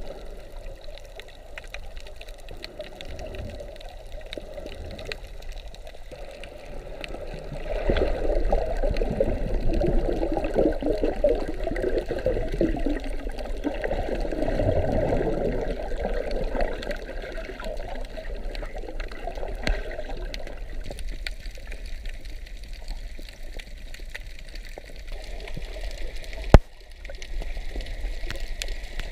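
Underwater sound picked up by a submerged camera: a steady watery hiss with bubbling and gurgling from rising air bubbles, louder for several seconds in the middle. One sharp click near the end.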